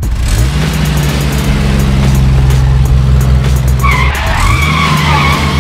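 Race car sound effect: the engine revs up to a steady drone, then revs up again, with a wavering tire screech starting about four seconds in.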